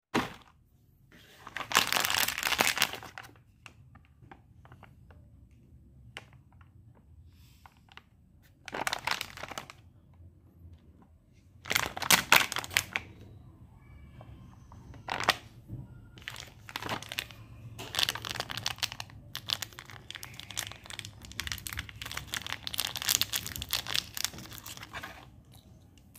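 Shiny plastic foil candy packet crinkling as it is squeezed and torn open by hand, in separate bursts of rustling and then a longer stretch of crinkling near the end.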